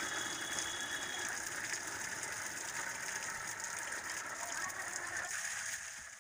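Stream of water from a hand pump's spout splashing steadily into a plastic bucket as it fills, fading out near the end.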